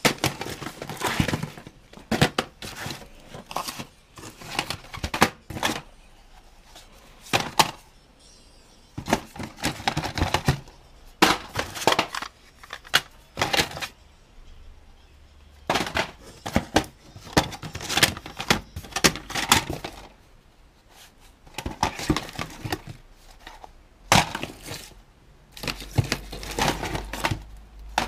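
Plastic VHS cassettes and their cases clattering and knocking against each other as they are pulled out and shuffled through in a cardboard box. The clatter comes in bursts of sharp clicks with short pauses between.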